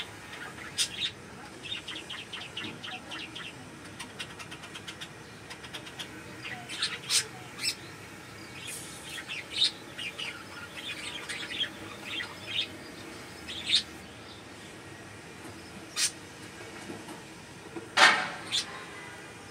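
Budgerigars chirping: short high chirps and sharp clicks scattered throughout, a quick run of soft ticks a couple of seconds in, and one loud harsh call near the end.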